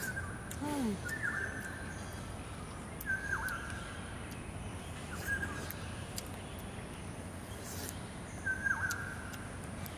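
A bird in the garden repeating the same short, high call five times a few seconds apart, each call ending in a quick downward flick.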